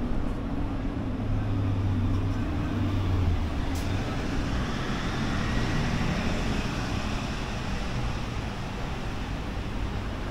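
Road traffic on a city street: a steady mix of vehicle engines and tyre noise, with a low engine drone strongest in the first few seconds.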